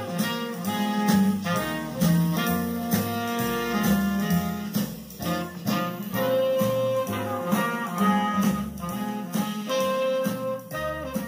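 Recorded music played from a CD through an Akai AM-A402 stereo integrated amplifier and loudspeakers, with sustained melody notes over a steady bass line.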